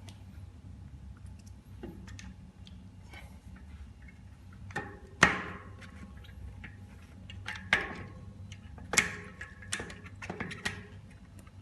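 Irregular sharp metal clicks and clinks of a bicycle quick-release skewer being handled and loosened, the loudest about five seconds in and several more in the last few seconds.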